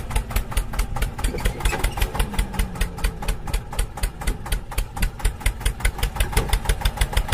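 A tractor engine idling with an even, rapid chugging of about seven beats a second.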